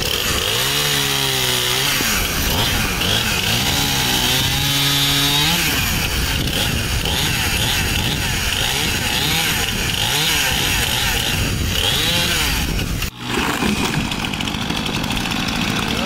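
Stihl Farm Boss two-stroke chainsaw revving and cutting through limbs of a fallen tree, its engine pitch dipping and rising with the load. The saw sound stops abruptly about 13 seconds in and gives way to a lower, steadier engine sound.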